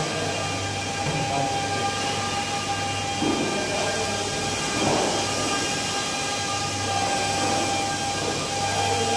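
Handheld car polishing machines running steadily against the paintwork: a constant motor whine over a low hum.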